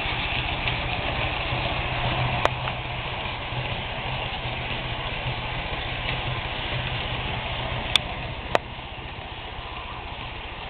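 Electrotren model AVE Series 102 train running on its track: a steady hum from its motor and the whir of its wheels on the rails, slowly getting a little quieter as it moves away. There are three sharp clicks, one about two and a half seconds in and two close together around eight seconds in.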